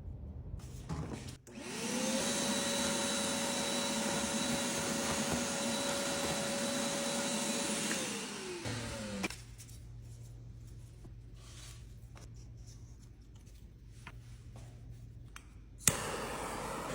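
An electric motor spins up, runs at a steady whine for about six seconds, then winds down. A low hum follows, and near the end a sharp click gives way to a steady noise.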